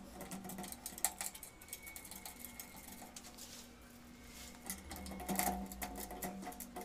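Light, irregular metallic clicks and taps of small screws being placed and turned by hand into the heating-element flange of an electric geyser (water heater).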